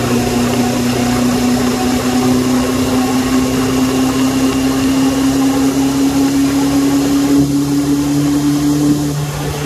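Suzuki Bandit 600 motorcycle's engine running on the move under wind noise, its note rising slowly as the bike speeds up. The main note drops away near the end.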